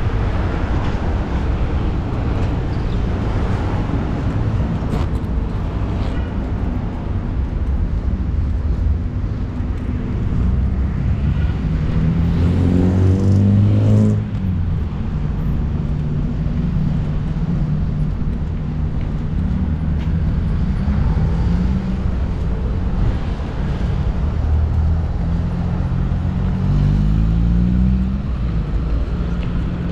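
Street traffic: car engines running and vehicles passing. One vehicle accelerates loudly past a little before halfway, its engine pitch rising and then dropping away suddenly, and another speeds up near the end.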